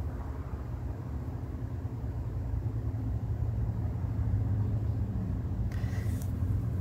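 Steady low rumble of background noise, with one short, higher noisy sound near the end.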